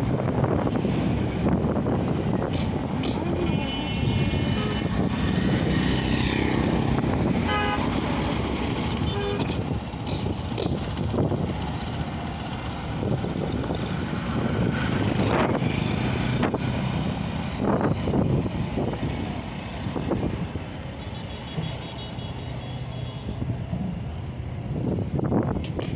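Steady road traffic noise with vehicle horns honking a few times, short high-pitched blasts about four seconds in and again near the end.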